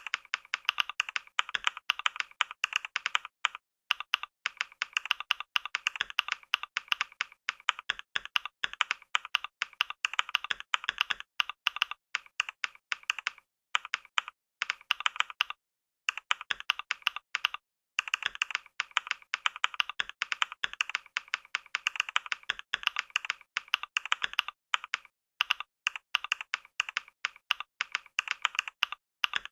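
Typing on a Logitech K380, a compact low-profile Bluetooth keyboard with scissor-switch keys: fast runs of light, crisp key clicks broken by a few short pauses.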